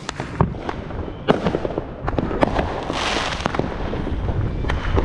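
Fireworks going off: an irregular string of sharp bangs and pops, with a hissing burst about three seconds in.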